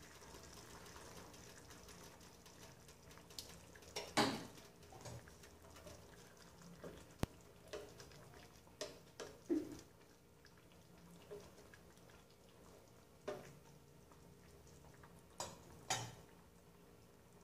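Green peas tipped from a plastic scoop into a stainless steel saucepan of simmering rice, then stirred in with a wooden spatula: scattered knocks and scrapes against the pot, the loudest about four seconds in, over a faint simmer.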